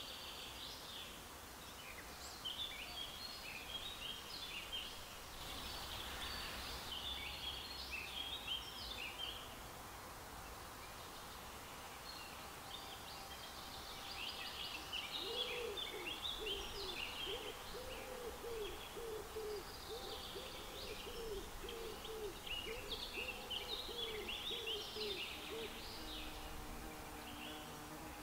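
Songbirds twittering in short quick phrases, joined about halfway through by a low hooting bird call repeated many times over about ten seconds.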